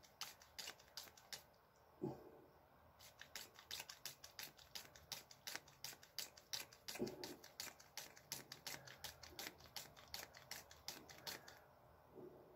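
Ear-irrigation bottle pumped over and over, sending short spurts of water into the ear canal about three a second to flush out impacted ear wax. The spurts break off briefly about two seconds in and stop shortly before the end. A few dull knocks come in between.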